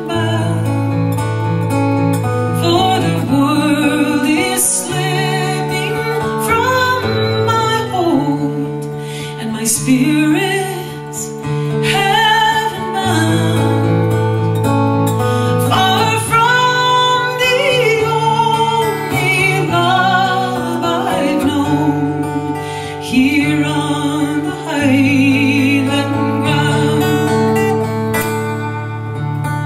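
Acoustic guitar fingerpicked with a thumb pick, playing a steady accompaniment with alternating bass notes, under a wavering melody line with vibrato, as an instrumental passage with no lyrics.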